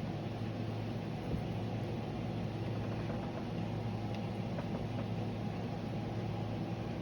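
Steady low background hum, like a fan or appliance running, with a few faint clicks.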